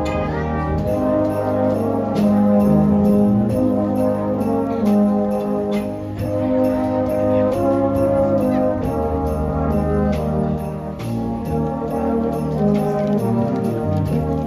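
Brass band playing live: cornets, trombones, euphoniums and tubas holding full chords that change every second or so, over a steady high percussion beat.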